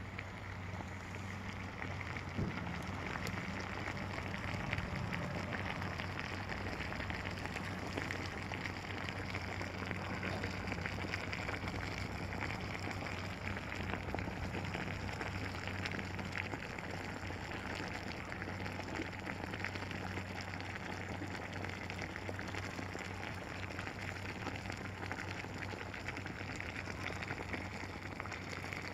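Two razor-blade electrodes wired to mains power in a glass of water, fizzing and crackling steadily as the current passes through and heats the water, over a low steady electrical hum. The fizzing gets a little louder about two seconds in.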